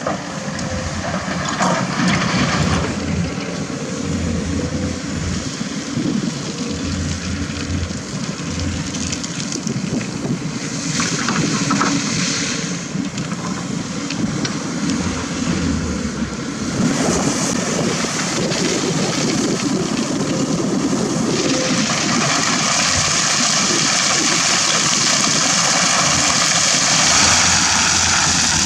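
Excavator diesel engines running while digging and loading. Near the end, gravel and sand pour from a Komatsu PC200's bucket into a dump truck's bed in a long rushing clatter.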